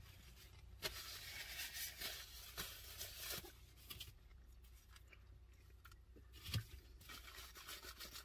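Rustling and crinkling of a paper napkin and the food box as they are handled, with small clicks and one sharp knock about six and a half seconds in.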